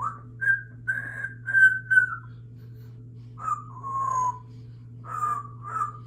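Congo African grey parrot whistling: a quick run of short high notes, then after a pause a few lower, falling whistled notes. A steady low hum sits underneath.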